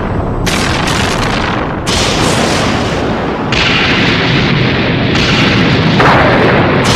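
Loud, dense designed sound-effect rumble with a run of sudden booming crashes every second or two, and a falling sweep near the end.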